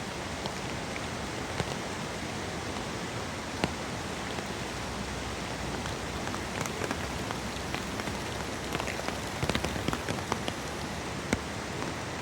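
Steady rain falling, with single drops striking sharply here and there, a few more of them about nine to eleven seconds in.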